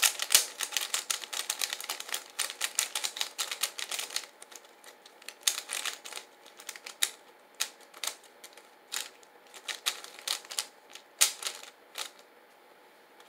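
Rapid plastic clicking of a 3x3 Rubik's cube as its layers are turned fast in a speed solve. There is a dense flurry of clicks for about the first four seconds, then shorter bursts with brief pauses, stopping about twelve seconds in.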